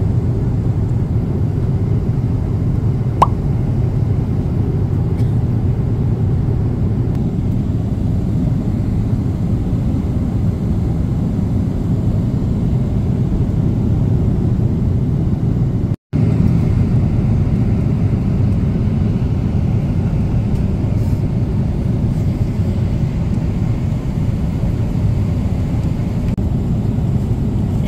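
Steady airliner cabin noise in flight: the low, even rumble of jet engines and airflow. A single sharp click sounds about three seconds in, and the sound cuts out for an instant about halfway through.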